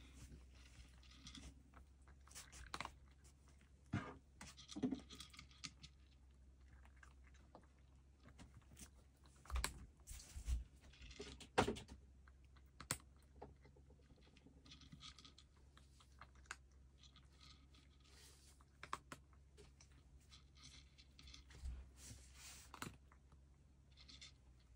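A cat eating from a bowl: faint, irregular crunching and clicking of chewing, with a few louder knocks at the bowl.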